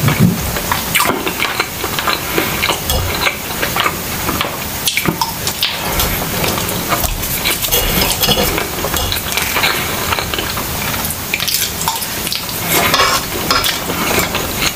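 Close-miked eating: wet chewing and mouth sounds of saucy palabok noodles, with a metal fork clinking and scraping on a ceramic plate. Dense crackle and many small clicks throughout.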